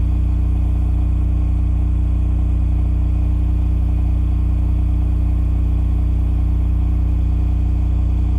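Cummins RS20A home standby generator running steadily under load at 3,600 RPM: an even, constant engine hum with a strong low drone.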